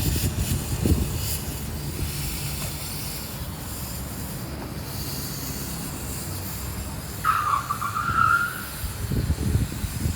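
Miniature railway train running, a steady low rumble. About seven seconds in, a high tone sounds for about a second and a half, rising slightly in pitch.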